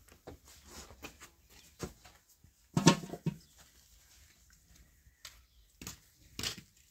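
Scattered soft knocks, pats and rustles of hands working bread dough and setting it out on a cloth. One louder short sound comes about three seconds in.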